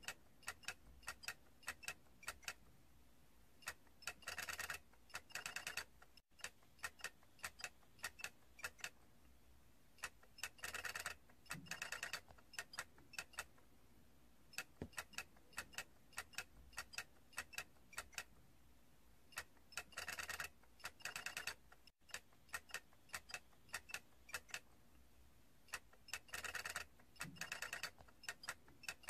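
Plastic toy clicking: sharp scattered clicks, with dense rattling runs of a second or two every several seconds.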